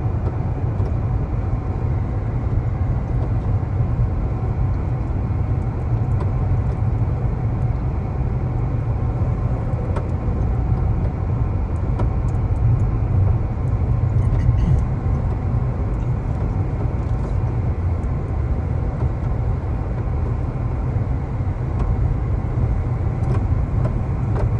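Subaru Solterra electric SUV heard from inside the cabin at highway speed: a steady low road rumble with a few faint, irregular taps in it. The tapping is the fault being recorded, which the owner takes for something loose flapping against the underside of the car, probably on the driver's side.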